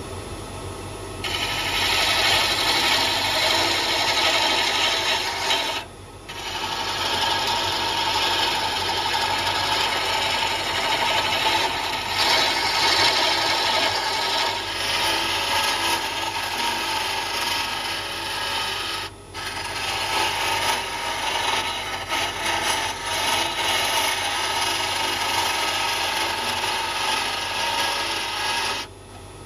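Wood lathe spinning a wooden spindle while a hand-held turning tool cuts it, a steady scraping hiss of shavings coming off over the lathe's low motor hum. The cutting starts about a second in and breaks off briefly a few times as the tool lifts from the wood.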